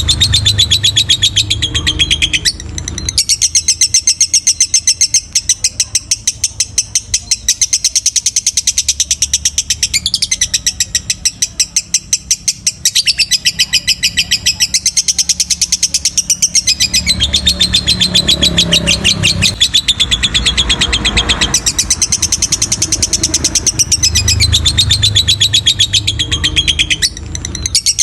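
Lovebird singing a long, rapid chattering trill of repeated high notes, with short breaks about two and a half seconds in and near the end. This is the long-duration song that lovebirds are bred and judged for.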